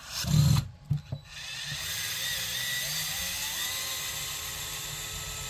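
Cordless DeWalt power driver running for several seconds on a small screw of an RC car, its motor whine rising in pitch partway through. Before it, a short loud knock and a couple of clicks.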